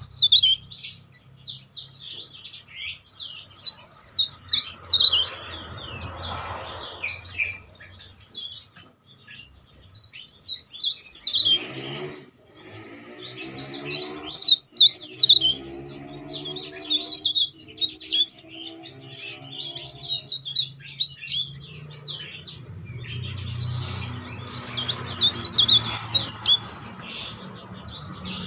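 Caged cikrak daun (mountain leaf warbler) singing: shrill, loud, very high twittering in rapid phrases a few seconds long, about five of them with short pauses between.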